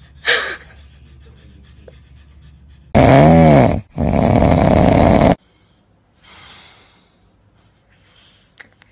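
A short cat meow just after the start. Then a man snoring loudly: two long snores back to back about three seconds in, the first pitched and wavering, the second noisier, followed by a fainter breath.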